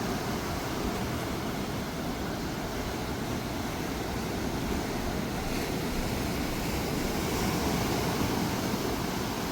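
Steady rush of ocean surf on the beach, with some wind on the microphone.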